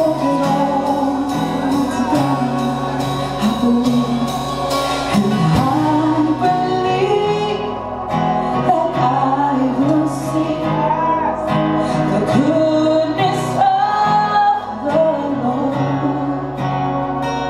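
Worship song performed live: voices singing a melody over a band with guitar and a steady beat.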